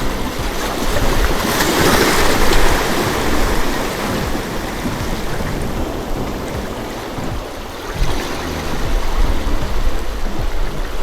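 Sea surf washing against a rocky shore: a steady rush of waves, with one wave surging up loudest about two seconds in and another building about eight seconds in.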